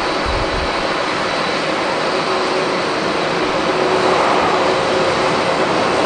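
Boeing 777 twin-jet airliner's engines making a loud, steady rushing roar as it rolls out down the runway just after touchdown, growing louder about four seconds in. Wind gusts buffet the microphone briefly near the start.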